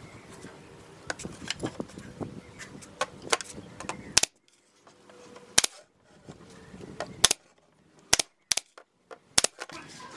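Pneumatic brad nailer firing about six times, sharp cracks at irregular intervals through the second half, driving nails through a glued pine edge strip into a board. Before that, quieter knocks and rubbing of the wood being handled.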